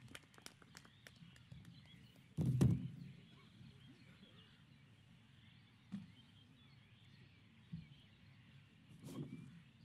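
Faint knocks and rustles of people sitting down and settling into armchairs, with a louder low thump about two and a half seconds in and a few smaller bumps later, over a faint steady background hiss.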